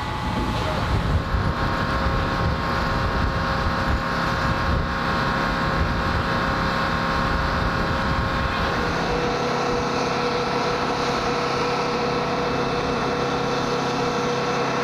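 Steady mechanical drone with a few constant whine tones over a low rumble, rough and gusty like wind on the microphone in the first half. About nine seconds in it changes to a smoother, even hum with a clearer steady whine.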